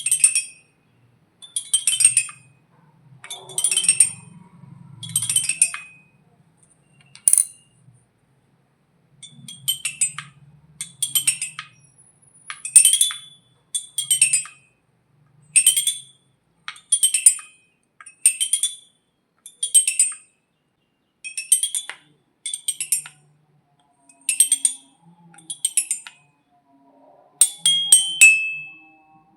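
Xylophone bars struck in short quick runs of bright, ringing notes, a cluster every second or so. There is a short break about seven seconds in and a denser flurry near the end.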